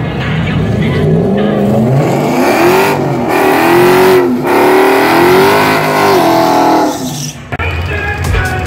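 Dodge Hemi V8 engine revving repeatedly while staging, its pitch climbing and falling in a series of rev-ups. About seven and a half seconds in, the engine sound breaks off and background music with a steady beat takes over.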